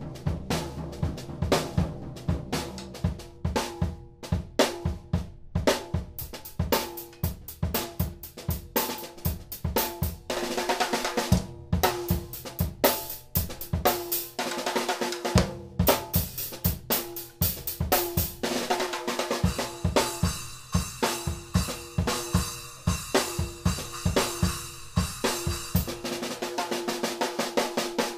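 Drum kit played in a continuous groove with sticks, built around a small PDP 805 6x10 popcorn snare with a ringing, high snare crack, plus bass drum, hi-hat and cymbals. The snare is almost untuned out of the box: top head untouched, snare-side head tightened only half a turn. The bass drum drops out briefly about halfway through and cymbals wash more heavily toward the end, with the playing stopping right at the close.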